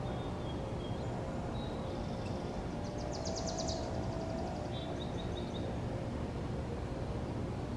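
Steady low outdoor background rumble, with small birds chirping in the distance and a short, fast bird trill about three seconds in.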